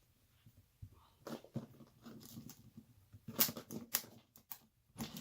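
Handling and opening a vintage typewriter carrying case: a handful of separate quiet clicks and knocks, the sharpest about three and a half to four seconds in.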